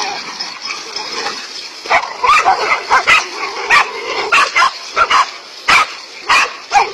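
A pack of dogs barking at a cobra they are attacking. At first there is rougher, quieter yipping and growling, then from about two seconds in come sharp, overlapping barks about twice a second.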